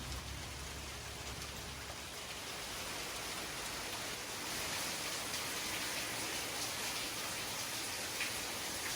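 Steady rain: an even hiss with a faint patter of drops that grows a little more distinct about halfway through.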